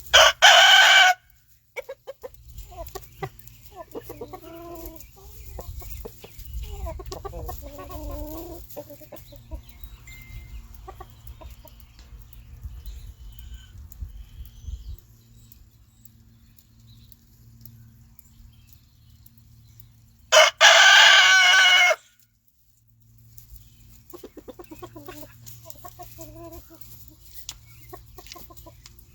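Rooster crowing twice, loud, about twenty seconds apart. Between the crows, chickens cluck in lower, quieter calls.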